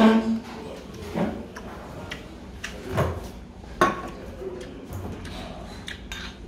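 A man eating soup from a small bowl: chewing and slurping, with a few sharp clicks and knocks at the start, about a second in, and around three and four seconds in.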